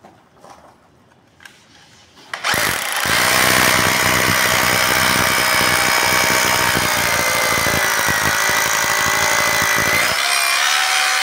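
Corded electric drill starting up about two seconds in and boring steadily into brick, a loud even motor whine over a rough grinding of the bit in the masonry. Near the end the grinding stops and the motor runs on freely.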